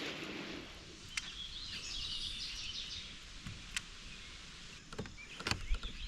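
Outdoor ambience on the water, with a bird singing in short chirping phrases in two spells, and a few sharp clicks scattered through.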